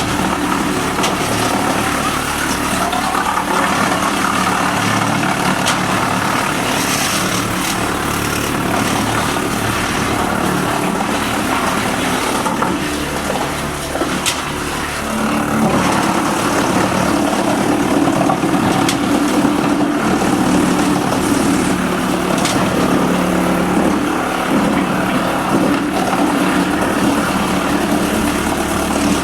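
Wood chipper's engine running steadily at speed, with a few sharp clicks scattered through. Its level dips briefly about halfway through, then picks up again.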